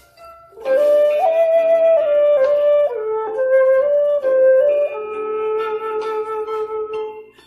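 An eight-hole bamboo tiêu, an end-blown vertical flute pitched in C, playing a slow melody. It comes in with a breathy attack about half a second in, moves through a run of notes with small slides between them, then holds one long note from about two-thirds through that fades near the end.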